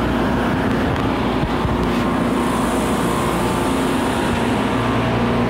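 Steady drone of running refrigeration plant machinery: a constant low hum with several steady tones. A faint high hiss swells for a couple of seconds in the middle.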